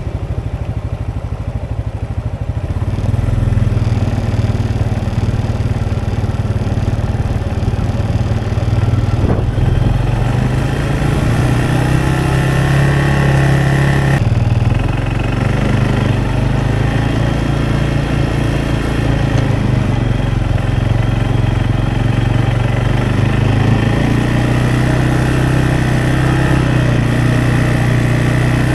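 Vehicle engine running steadily, its pitch shifting a little about halfway through and again near the end.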